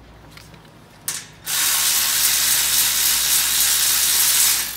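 Cordless electric ratchet backing out a bolt of a steel shipping frame: a short blip of the motor about a second in, then a steady whirr of about three seconds that stops near the end.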